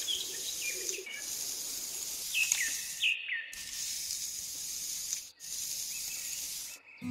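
Thin wooden stick scratching a line through sand, a steady hiss broken by a few short pauses, with several short falling bird chirps.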